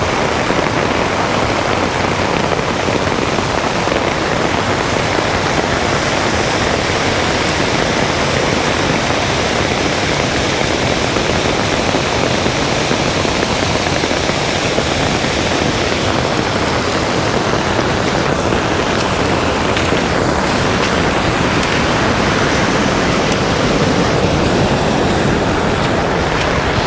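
Flooded creek rushing past in a torrent: a loud, steady rush of water that holds the same through the whole stretch.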